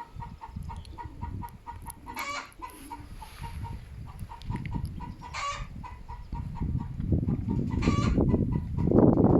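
Chickens clucking: a steady run of short clucks with three louder calls spaced a few seconds apart. Gusty wind buffets the microphone, loudest near the end.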